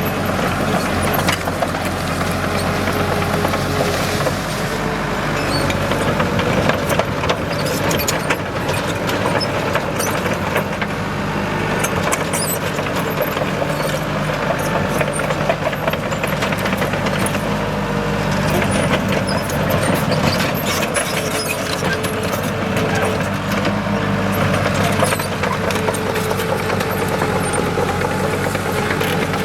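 Komatsu D37EX crawler bulldozer's diesel engine running steadily, with frequent sharp clicks and clanks over it.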